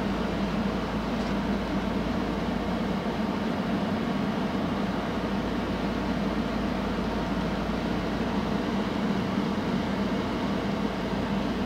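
Towboat's diesel engines running with a steady low drone as it pushes loaded barges upriver.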